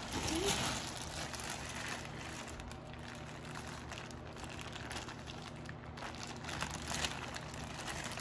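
Takeout food packaging rustling and crinkling as it is handled, with a few light knocks, over a low steady hum.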